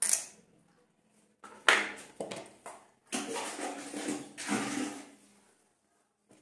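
Handling noise from a plastic comb in wet hands: a sharp knock at the start, a few short scrapes, then a rough rustling stretch of about two seconds.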